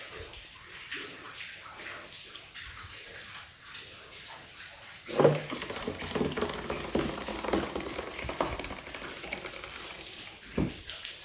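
Thick corn cake batter being poured from a blender jar into a baking pan, with wet sloshing and a utensil scraping the jar, louder from about five seconds in; a single knock against the jar or pan near the end.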